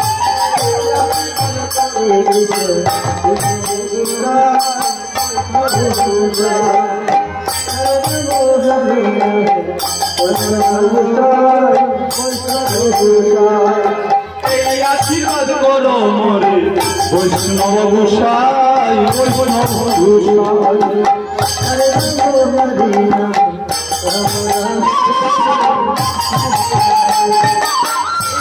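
Bengali devotional kirtan music: a melody with bending notes over a steady beat of hand-drum strokes, with jingling cymbals coming in and out in regular groups.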